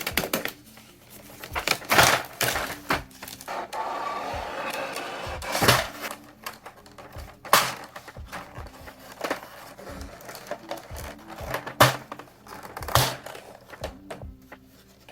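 Clear ABS keycaps and their packaging being handled: scattered plastic clicks and knocks, with a second or so of rustle about four seconds in, over quiet lo-fi background music.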